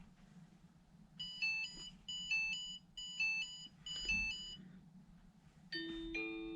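An electronic beeping tune, like a phone ringtone or alarm clock, plays a short high phrase four times over. Near the end a rising run of held chime notes begins.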